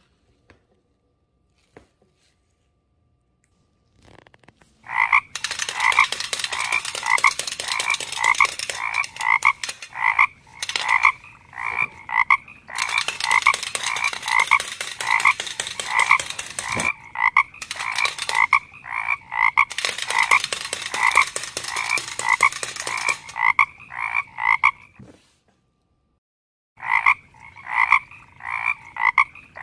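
Wind-up tin frog toys running: a dense, rapid clicking clatter with a repeated frog-like croak about three times a second, starting about four seconds in and breaking off abruptly several times.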